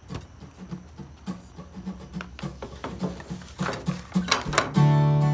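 A run of short, irregular knocks, each with a brief low tone, getting louder, then an acoustic guitar chord strummed near the end and left ringing.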